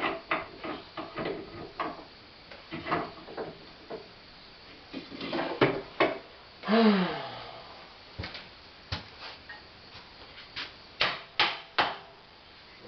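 Irregular clicks, clanks and scrapes of cast-iron Corona corn mill parts being handled as its gears are fitted back on by hand.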